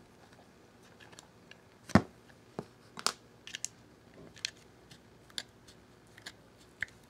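Small metal parts of a Glock pistol being handled as a pin is pushed out of the frame: scattered sharp clicks and taps, the loudest about two seconds in.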